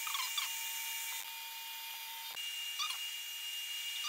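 LaserPecker 2 laser engraver running while it engraves a wooden cutting board: a steady fan hiss with a thin high whine that shifts pitch about a second in, and a soft click a little past two seconds. A few short chirps come through over it.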